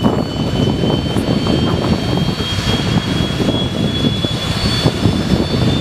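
Handley Page Victor K.2's Rolls-Royce Conway jet engine starting up: a steady rough rumble under a high whine that slowly rises in pitch as the engine spools up.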